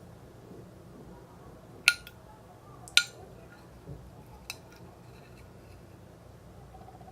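Three sharp clicks or taps over a faint background hiss. The first two, about a second apart, are the loudest.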